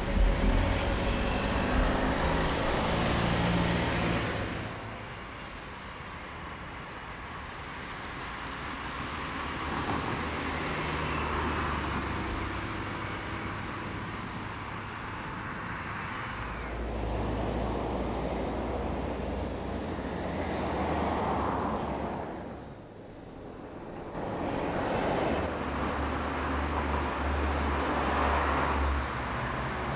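Fiat 500 TwinAir's two-cylinder engine as the small car drives by, in several separate passes that each swell and fade over a few seconds. The sound cuts abruptly between shots, with tyre noise on the road.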